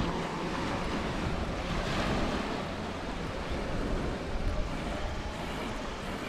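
Small waves washing steadily onto a pebble beach, with light wind.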